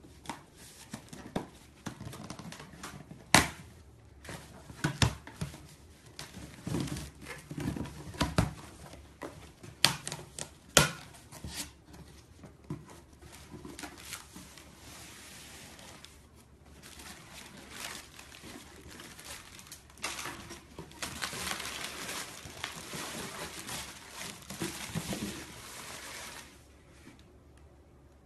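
A cardboard box with bubble wrap and plastic packaging being handled and rummaged through: crinkling and rustling with scattered sharp taps and knocks. A longer, denser stretch of crinkling comes about three quarters of the way through.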